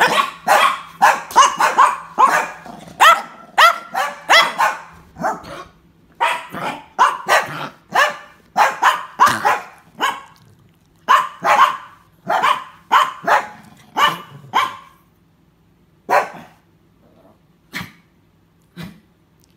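Dog coughing hard in harsh, bark-like hacks, about two to three a second, in three long runs with short pauses between them. It trails off to a few single coughs near the end.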